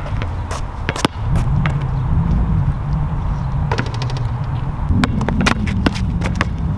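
Basketball bouncing on an outdoor asphalt court: a few sharp, scattered bounces, then quicker dribbling near the end, over a steady low rumble.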